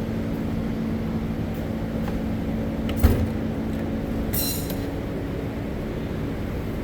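A steel tool chest drawer shut with a single knock about three seconds in, followed by a brief metallic rattle of drawer slides as another drawer is pulled open, over a steady low hum.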